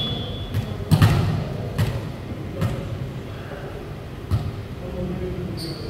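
Volleyball rally in a large hall: a few separate thuds of the ball being played and players landing on the court, the strongest about a second in, then more spaced roughly a second apart.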